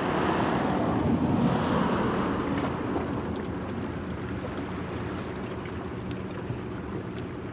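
Low steady engine hum from the helicopter destroyer Kaga and her tug, heard across the water, with a rushing noise that swells over the first couple of seconds and then eases.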